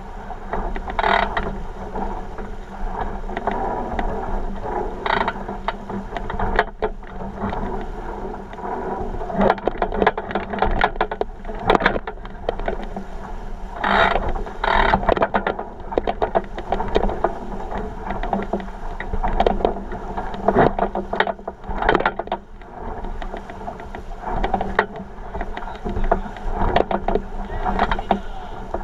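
Water rushing and splashing along the hull of a 49er skiff sailing fast, with frequent knocks and rattles and wind on the microphone.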